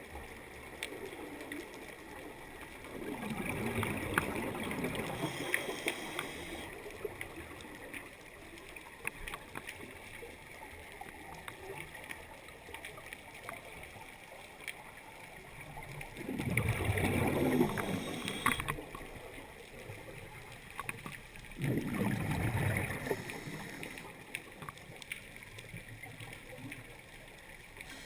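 Scuba diver's regulator breathing underwater: three rough bursts of exhaled bubbles, a few seconds in, past the middle and again soon after, over a low underwater hiss with many scattered small clicks.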